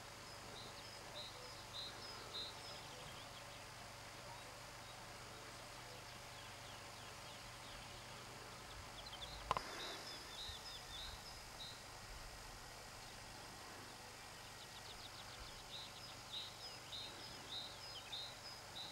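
Faint birdsong: a songbird sings runs of short, high, repeated notes, three times. One sharp knock comes about halfway through.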